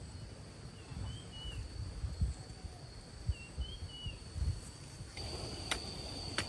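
Outdoor rural ambience: a bird gives short two-note chirps twice, over a steady high insect drone that grows louder about five seconds in, with low rumble underneath and a couple of sharp clicks near the end.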